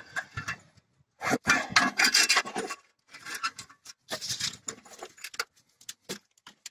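Thin sheet-steel brake dust shield scraping and rattling as it is handled and worked, in irregular rasping bursts, followed by a few sharp metal clinks of hand tools being picked up and put down.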